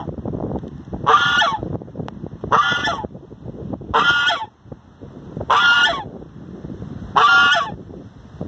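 White domestic goose honking repeatedly at close range: five short, nasal honks, evenly spaced about a second and a half apart.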